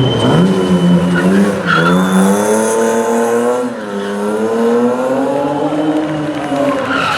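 Rally car engine revving hard, its pitch climbing, dropping sharply just before the middle as the driver shifts or lifts, then climbing again, with the tyres squealing near the start and again about two seconds in.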